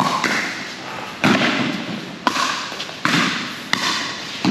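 Pickleball rally: about five sharp pops of paddles striking the plastic ball, and ball bounces, under a second apart, each trailing off in a short echo.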